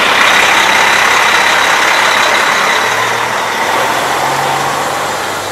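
Diesel semi truck idling close by: a loud, steady rushing noise with a faint low hum underneath.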